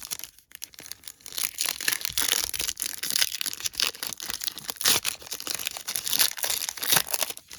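Continuous crinkling and tearing of a plastic-foil trading card pack wrapper as it is handled and torn open.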